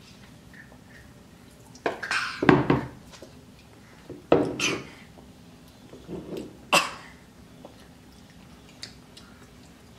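A few short clunks and clatters of plastic sippy cups and food being set down on a table, in three brief clusters, loudest about two and a half seconds in.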